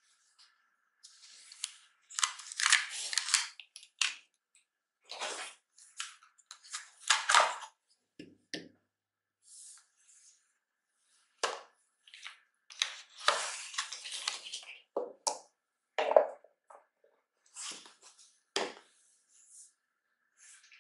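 Irregular rustling and crinkling of plastic packaging, with a few sharp clicks and soft knocks, as a bagged charging cable and a wall charger are unpacked and set down on a tabletop.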